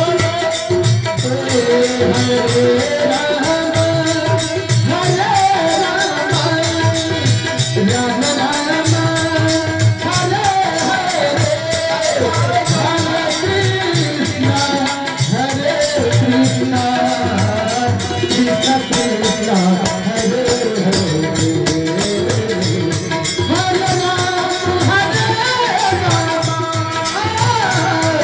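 Hindu devotional kirtan music: a steady drum beat under constant jingling percussion, with a winding melody over it.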